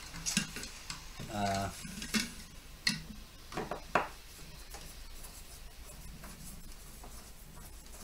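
Screwdriver working the screws of a plasma TV's power board against its metal chassis: a few separate sharp clicks and taps in the first half, then faint handling.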